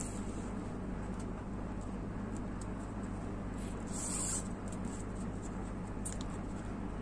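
Nylon paracord rustling and scraping as it is handled and tucked through a woven bracelet, with a few light clicks, over a steady low hum.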